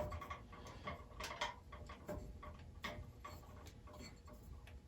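Faint, irregular clicks and taps of hands working a urethane tire into the groove of a Craftsman 12-inch bandsaw wheel.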